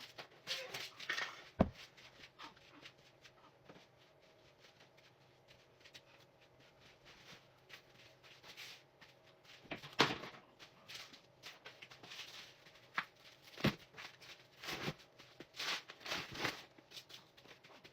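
Household handling noises while tidying a room: scattered knocks and clicks of objects being picked up and set down, with rustling in between; the sharpest knocks come about a second and a half in, around ten seconds in, and just before the last few seconds.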